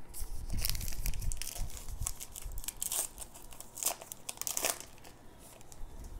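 Foil wrapper of a baseball-card pack being torn open and crinkled by hand, in several sharp crackling bursts.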